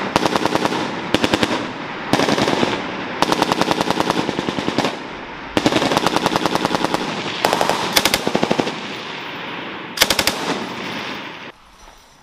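Belt-fed machine gun firing about eight bursts, each a rapid string of shots, the longest a second or more. Echo trails after each burst, and the firing stops near the end.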